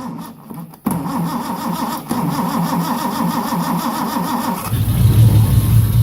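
Datsun 260Z's L26 straight-six being cranked by the starter in even pulses for a few seconds, then catching and running near the end.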